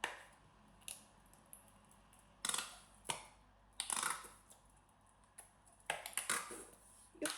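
A soft pack of mayonnaise handled and squeezed into a pot: a string of short, sharp squirts and rustles.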